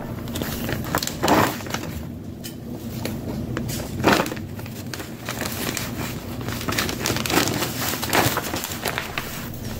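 Clear plastic vacuum-sealer bag crinkling and rustling as handfuls of diced onion are pushed into it, with irregular louder crackles about a second in and again around four seconds in.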